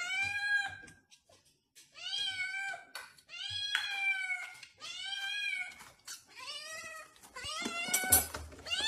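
Black kitten meowing over and over, about six high-pitched meows roughly a second apart, each rising and then falling in pitch.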